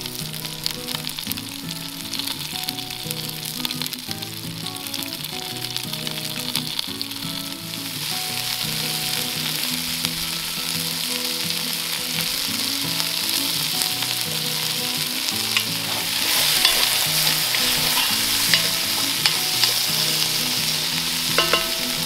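Venison cubes sizzling in hot olive oil in a cast iron Dutch oven as they brown, with a few light clicks of metal tongs against the pot. The sizzle grows louder in the second half.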